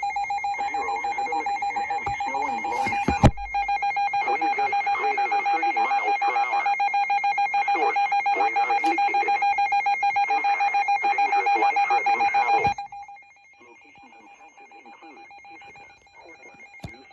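Alert alarm from an emergency weather radio receiver: one high, steady tone that pulses rapidly and evenly, then cuts off suddenly about 13 seconds in. A sharp click sounds about 3 seconds in.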